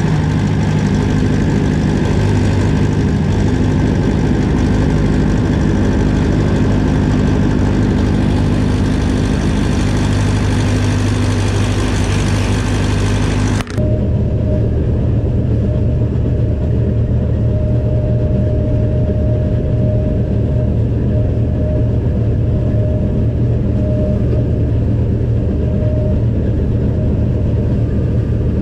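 Combine harvester's diesel engine running steadily, heard close to its exhaust on top of the machine. About 14 seconds in, it cuts to the duller, muffled drone of the engine and threshing machinery inside the cab while the combine harvests, with a faint steady whine over it.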